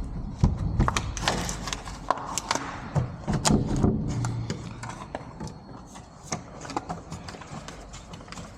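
Irregular metallic clicks, taps and knocks of a shim being worked against a door latch that will not retract, busiest and loudest in the first four seconds, then sparser. The latch is taken to be jammed.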